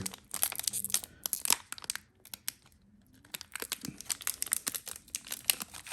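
Hockey trading-card pack wrapper crinkling and crackling as hands work at a stuck pack that won't tear open, with a short pause about halfway through.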